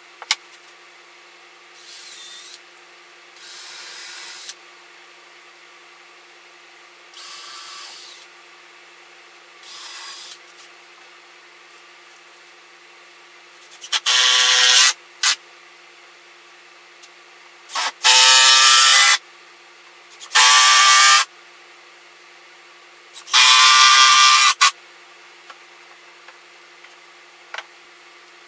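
Power drill running in short bursts of about a second, with a pitched motor whine: four fainter runs in the first ten seconds, then four louder ones about halfway through.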